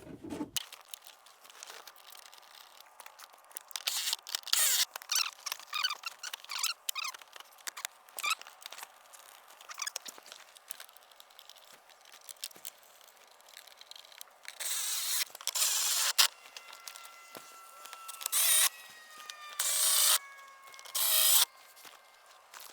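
Plastic interior trim being handled and pushed into place, with irregular rustling and scraping, then several longer scrapes with a faint squeak near the end.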